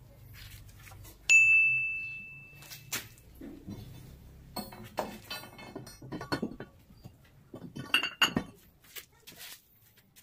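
Painted metal barbell weight plates clinking: one sharp clink about a second in rings on for about a second and a half. It is followed by a run of irregular knocks and shorter clinks as plates and spin-lock collars are handled.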